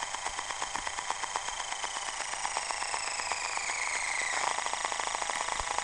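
Cobra DVC-910 camcorder's own recording noise: a rapid, even chopping pulse, many beats a second, under high whining tones that slide downward about four seconds in. The owner does not know what causes it and says it sounds like a helicopter.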